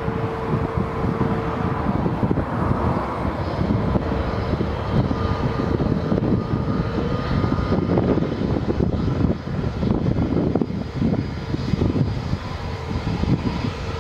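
Airbus A321-211 jet airliner's CFM56 turbofan engines during the landing rollout just after touchdown: a steady, gusty rumble with a faint whine in it.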